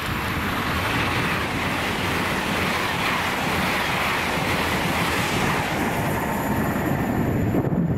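A train running on the main line: a steady rush of wheel and rail noise.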